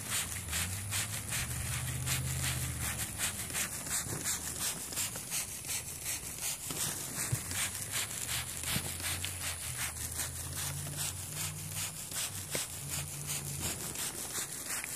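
Trigger spray bottle being squeezed over and over, misting fabric stain protector onto a rug in a steady rhythm of about three to four short sprays a second. A low hum comes and goes in the background.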